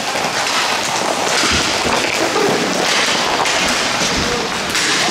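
Hockey play: a dense, rapid clatter of sticks and puck, with a few louder noisy swells.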